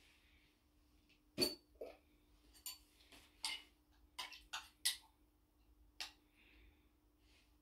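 A metal utensil clinking and knocking against the inside of a glass jar of pickles as they are fished out: about eight short, sharp clinks, the loudest about a second and a half in. A faint steady hum runs underneath.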